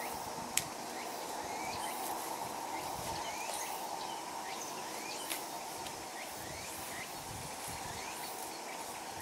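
Steady insect drone with many short rising bird chirps, and two sharp snips of hand pruning shears cutting watermelon vines, about half a second in and again just after five seconds.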